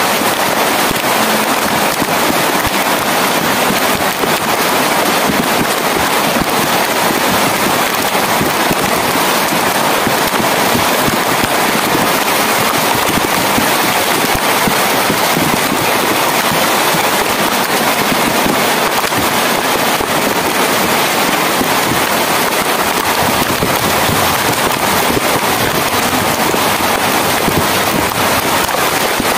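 Rain falling steadily: a loud, dense, even rush of countless drops that holds without let-up.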